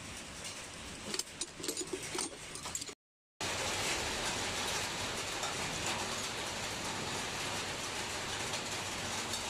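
Steel spanners and sockets clinking as a combination spanner is pulled from a crowded metal toolbox, several sharp clinks over about two seconds. After a brief dropout, a steady hiss of rain fills the rest.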